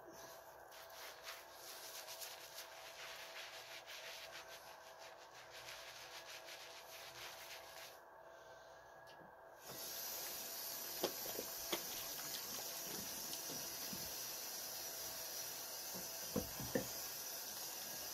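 Hands scrubbing shampoo lather into a thick beard: a dense run of close, scratchy rubbing strokes. After a short lull about eight seconds in, it turns into a steadier, louder hiss with a few sharp clicks.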